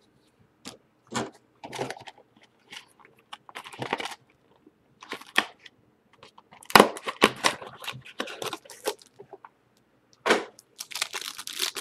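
Football trading cards and their plastic packaging being handled: irregular short clicks and rustles of card stock, with crinkling plastic.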